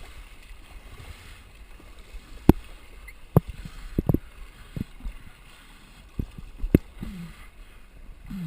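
Kayak being paddled, with water sloshing and a series of irregular, sharp hollow knocks against the hull.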